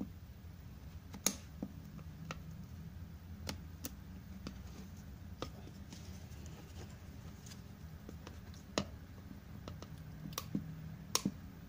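Scattered sharp clicks and taps of a retail watch box's packaging being handled and worked at to open it, at uneven intervals, over a low steady hum.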